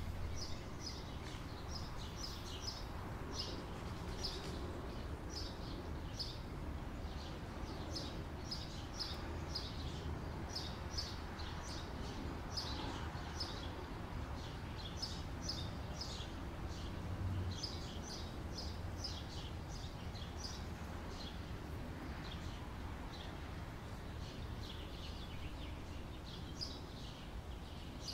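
Small birds chirping in quick runs of short, high chirps that recur throughout, over a steady low rumble.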